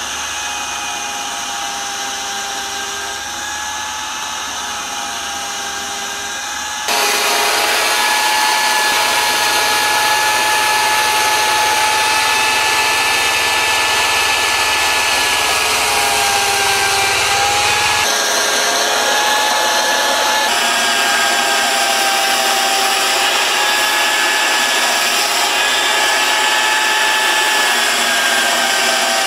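Electric chainsaw running and cutting grooves into a block of wood. Its motor whine holds steady and sags in pitch now and then as the chain bites. About seven seconds in it becomes suddenly louder.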